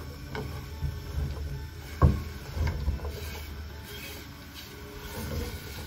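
Chopped champignon mushrooms going into an oiled frying pan: a utensil knocks and scrapes against the pan, with one sharper knock about two seconds in. A faint sizzle begins about three seconds in as the mushrooms start to fry.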